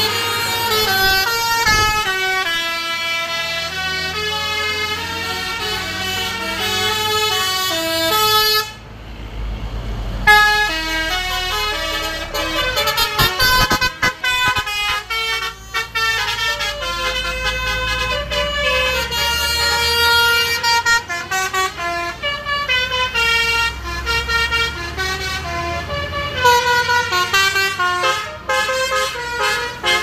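Basuri telolet multi-tone bus horns on Jetbus 3 coaches playing a fast melody of stepped notes, with a coach engine running underneath. The tune breaks off for about a second some nine seconds in, then starts again.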